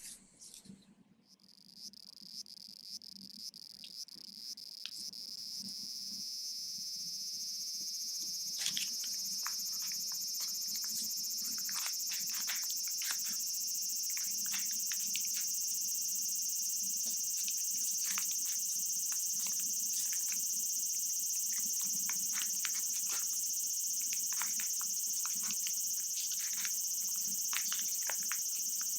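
Cicadas shrilling in a continuous high-pitched buzz that swells up over the first several seconds and then holds steady. Many short crackles are scattered through it from about a third of the way in.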